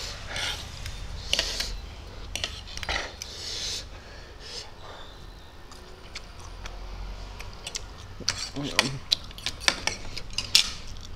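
Metal fork and spoon clinking and scraping against a ceramic plate of noodles in many short, irregular clicks, with a few brief slurps of noodles in between.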